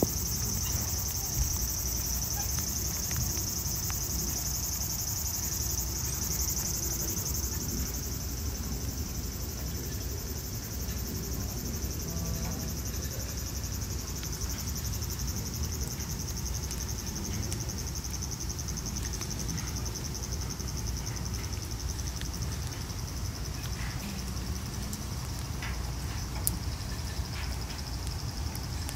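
Cicadas in a steady high chorus, louder in the first several seconds and then fading somewhat, over a low background rumble.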